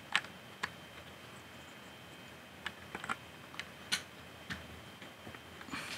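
Lego pieces clicking onto a brick model as long black plates are pressed into place: scattered short, sharp plastic clicks, the strongest just after the start and about four seconds in, with a few close together near the end.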